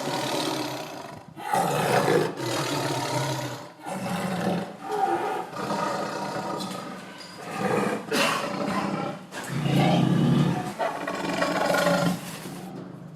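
Tiger growling and roaring in a run of repeated calls, each lasting a second or two, with short breaks between.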